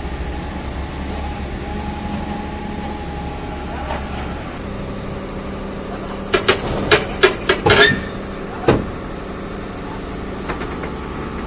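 Tata Hitachi EX200 crawler excavator's diesel engine running steadily as the machine crawls onto a low-bed trailer. About six seconds in comes a quick run of loud metallic clanks from its steel tracks on the trailer, then one more clank a second later.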